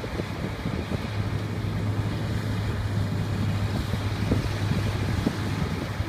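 Preet combine harvester's diesel engine and threshing machinery running steadily at working load, a constant low hum that settles in about a second in, with wind buffeting the microphone.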